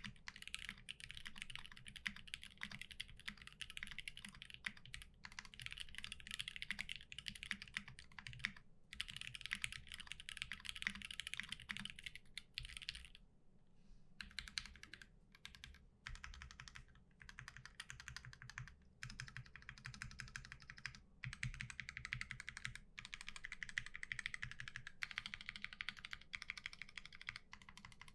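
Fast typing on a Keycult No. 2 Rev. 1 mechanical keyboard with a brass full plate on a leaf spring, GMK keycaps and lubed Gateron Black linear switches: quick runs of keystrokes broken by short pauses, the longest about thirteen seconds in.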